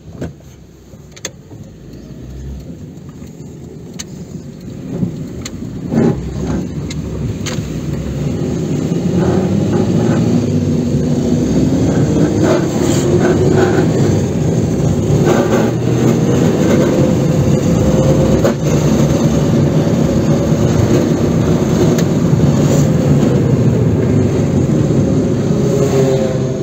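Datsun On-Do's 1.6-litre engine and manual gearbox heard from inside the cabin as the car pulls away and drives off. There are a few sharp clicks in the first seconds, then engine and road noise build over about ten seconds and hold. A whine climbs in pitch for several seconds, then falls away near the end. All gears engage.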